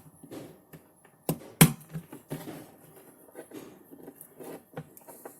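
A few sharp clicks and taps of small parts being handled as wires are fitted into a digital timer's screw terminals, the loudest two close together about a second and a half in.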